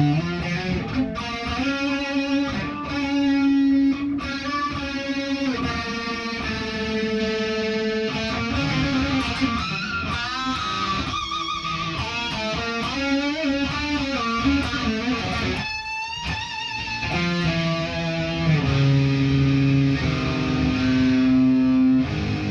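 Electric guitar played solo: a melodic line of held single notes, with string bends and vibrato about halfway through.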